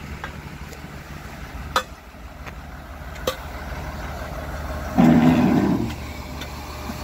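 Flatbed tow truck's engine running with a steady low hum while its winch draws a pickup up the tilted deck, with a few sharp metallic clicks and a louder rough stretch of about a second near the end.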